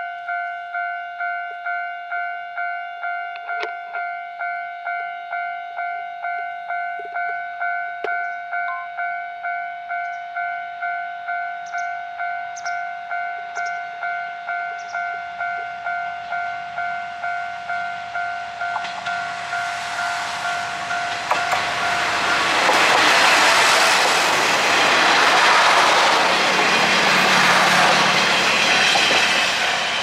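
Japanese level-crossing alarm ringing in a steady, regular ding-ding rhythm. About twenty seconds in, the noise of a train of diesel railcars (KiHa 38, KiHa 37 and KiHa 30) grows and passes, loudest for several seconds, while the crossing alarm keeps ringing.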